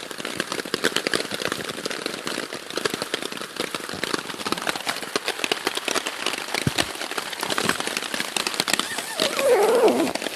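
Rain pattering on a hammock tarp, a dense, irregular patter of drops hitting the fabric. Near the end a short pitched sound falls in pitch over the rain.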